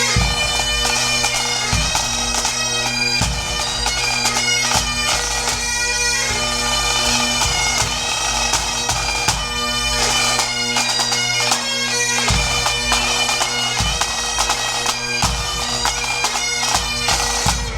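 Music: a melody played over steady drones, with a low drum beat about every second and a half. It stops at the very end.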